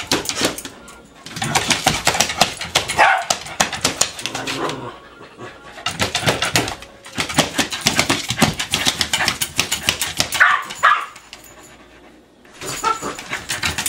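A dog scratching fast and hard with its claws at the base of a cabinet, in long bursts broken by pauses about five seconds in and again near the end. Two short cries from the dog are heard in between.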